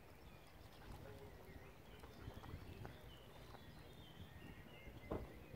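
Faint outdoor ambience: distant high bird calls over a low rumble, with a single knock about five seconds in.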